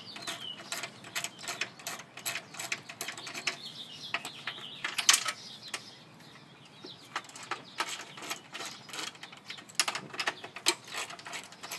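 Socket ratchet clicking in quick runs as it backs out the motorcycle grab-handle bolts, with a short pause about halfway through.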